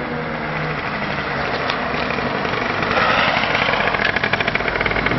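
Small two-stroke motorbike engine approaching, getting louder and revving up about three seconds in into a fast rattling buzz.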